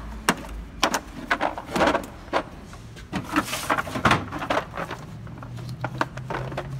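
Tools and plastic tool cases being handled in a steel tool cabinet: a string of clicks, knocks and clatters, with a brief scrape about three and a half seconds in.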